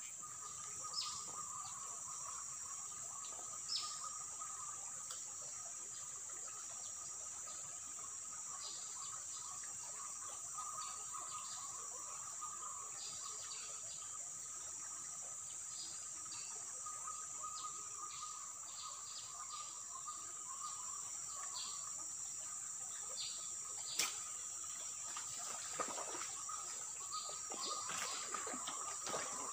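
Steady insect chorus in riverside vegetation: a continuous high-pitched drone with a lower steady trill beneath it, and many short chirps scattered over it. A single sharp click comes about 24 seconds in.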